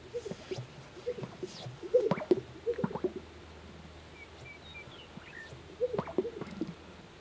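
Greater sage-grouse strut displays on a lek, three in a row: low, hollow cooing notes and sharp pops from the males' inflated air sacs, the loudest double pop about two seconds in.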